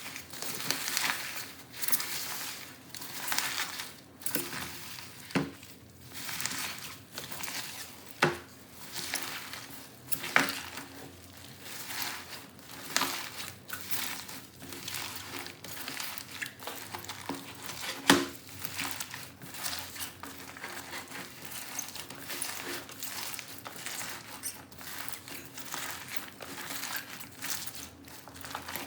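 Slime being squeezed and pressed by hand, with a dense, irregular crackling and a few sharper clicks and pops.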